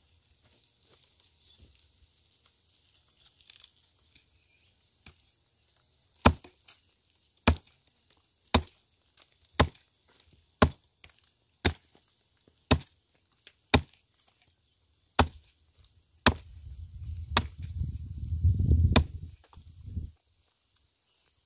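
A hatchet chopping into a bamboo stump: about a dozen sharp strikes, roughly one a second, beginning about six seconds in. Near the end a loud low rumble runs under the last few blows for about four seconds.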